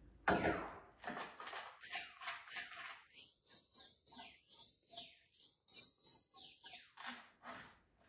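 A butter knife scraping Vegemite across toast in a steady run of short, quick strokes, roughly two or three a second, after a single knock just after the start.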